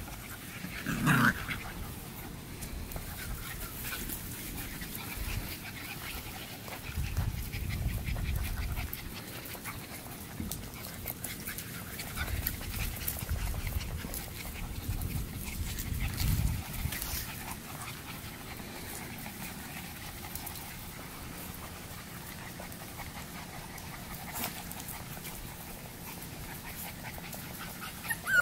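Young Boxer puppies panting and whimpering, with a short louder sound about a second in.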